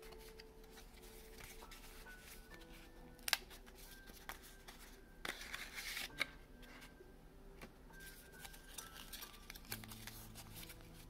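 Paper being handled: a small paper envelope opened and a folded paper slip drawn out and unfolded, with rustling and crinkling, a sharp snap about three seconds in and a longer rustle around five to six seconds in. Soft background music plays underneath.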